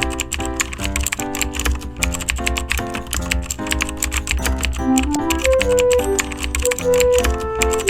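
Music: chords changing about every half second under a fast, dense clicking rhythm, with a short rising-and-falling melody about five seconds in.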